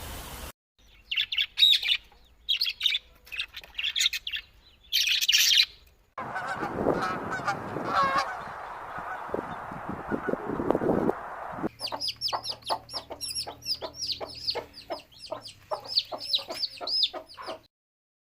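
Three cuts of bird calls. First come bursts of high chirping, then lower honking calls over background noise, then a fast run of high repeated chirps that stops abruptly about a second before the end.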